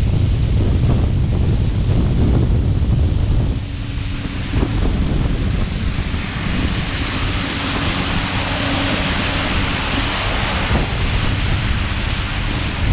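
Wind buffeting the microphone of a camera on a moving motorboat, a loud gusty low rumble mixed with the rush of water. A faint steady hum from the boat's motor comes through from about four seconds in.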